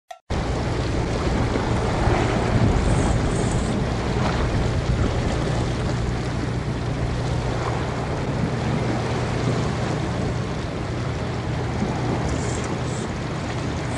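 Steady outdoor sea-coast ambience: wind and waves, with a low steady droning hum underneath.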